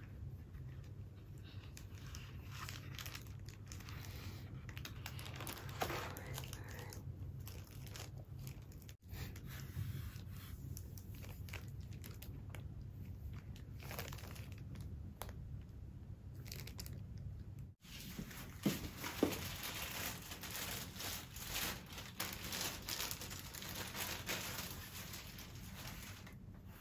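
Clear plastic wrapping crinkling and tearing as a boxed metal plaque is unwrapped and handled, with scattered handling clicks and two sharp knocks about two-thirds of the way through.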